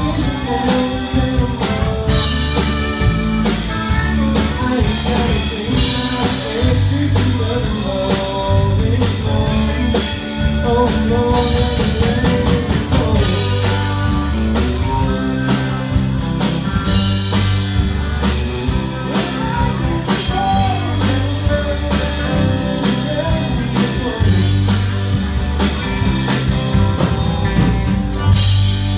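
A band playing a country-rock song: a drum kit keeps a steady beat under bass and electric guitar.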